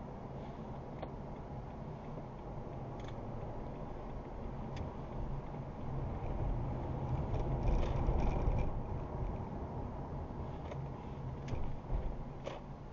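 Car on the move: a steady low road and engine rumble that swells louder for a few seconds around the middle and then eases, with a few faint clicks.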